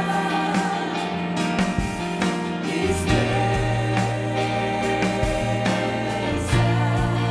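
Live worship band playing, with piano and acoustic guitar under women singing sustained, wavering vocal lines. Low bass notes come in about three seconds in.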